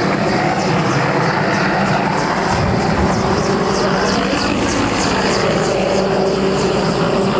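Helicopter overhead, its rotor and engine making a loud, steady drone.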